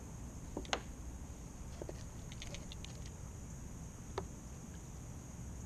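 Sharp clicks and knocks from handling a fish-grip tool against the kayak while a catfish is released over the side: one loud click a little under a second in, another about four seconds in, and a cluster of faint ticks between them. A steady high-pitched drone runs underneath.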